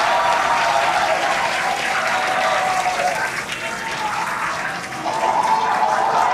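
Crowd applauding and cheering, a dense steady clapping noise with shouting voices mixed in, easing off briefly a little past the middle.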